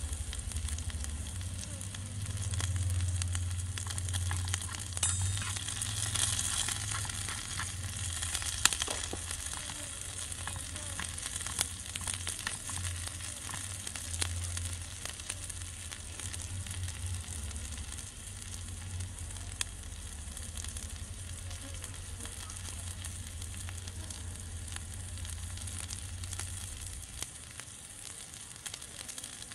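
Food sizzling in a small iron wok as it is stir-fried, with a spatula clicking and scraping against the metal now and then.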